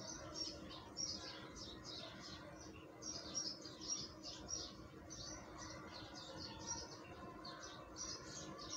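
Small birds chirping faintly in the background: many short, high chirps in quick succession, over a faint steady hum.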